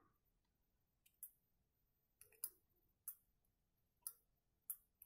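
Near silence broken by about five faint, sharp clicks, spread out a second or so apart: small handling sounds as soldering tweezers desolder wires from a Bluetooth headset's circuit board held in the hand.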